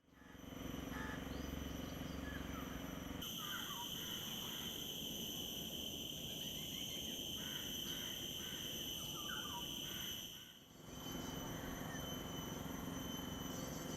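Mangrove insects keeping up a steady, high, shrill drone, with a few short bird chirps scattered through it. The sound shifts abruptly about three seconds in and dips briefly near eleven seconds, as one clip gives way to the next.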